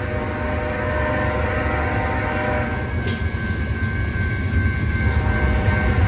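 Freight cars of a BNSF train rolling past on street track, a steady low rumble with sustained high-pitched tones over it. The tones shift higher about halfway through, and a brief sharp clank comes about halfway.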